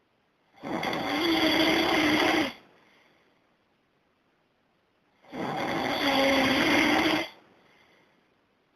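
A person snoring loud: two long, rough snores of about two seconds each, roughly five seconds apart. Each is followed by a faint breath out.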